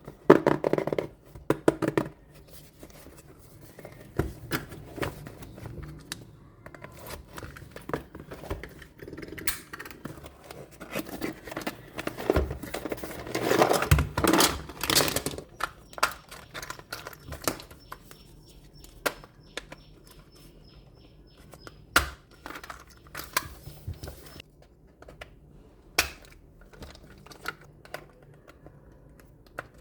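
Close-up handling of toy trucks and their packaging: scattered sharp clicks and taps with bouts of rustling. The handling is busiest in the first couple of seconds and again around the middle, then thins to isolated clicks.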